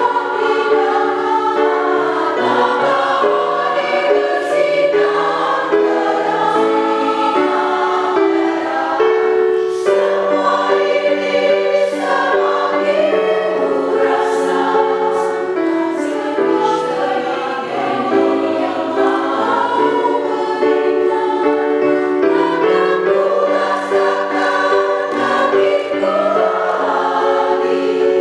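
A women's choir singing in several parts, the voices holding chords and moving together from one chord to the next.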